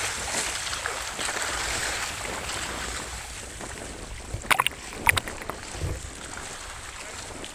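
Seawater washing and rushing against the rocks, with wind on the microphone. The sound grows quieter after about three seconds, and a few sharp clicks come about four and a half to five seconds in.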